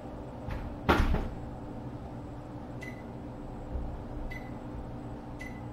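A loud sharp knock about a second in, then three short high electronic beeps spaced a second or so apart, over a steady low hum in the kitchen.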